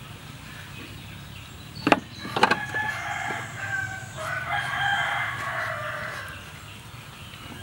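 Two sharp clicks of a metal fork against a steel tray about two seconds in, followed by a rooster crowing once in the background, a single call lasting about four seconds.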